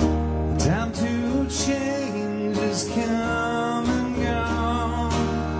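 Two acoustic guitars playing a slow rock song: steady strummed chords under a picked melody line, whose notes slide up about a second in.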